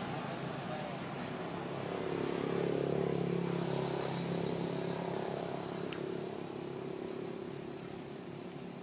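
A motor vehicle engine running steadily in the background. It grows louder about two to three seconds in, then slowly fades away.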